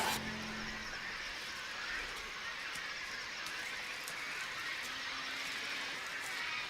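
Birds in a nesting colony calling faintly now and then over a steady outdoor hiss.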